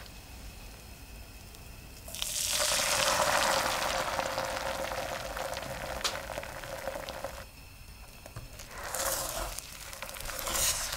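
Beaten egg hitting hot oil in a nonstick frying pan starts a sudden sizzle about two seconds in, after a faint hiss of heating oil. The sizzle eases off, then flares up twice more near the end as a spatula folds the egg.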